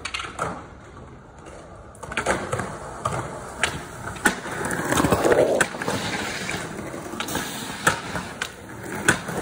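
Skateboard wheels rolling on concrete, swelling from about two seconds in, with several sharp clacks of boards and wheels striking the pavement.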